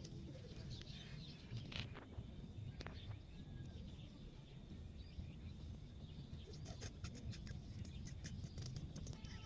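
Faint outdoor ambience: a steady low rumble with a few light clicks and knocks, mostly about two seconds in and again near the end, and faint chirps.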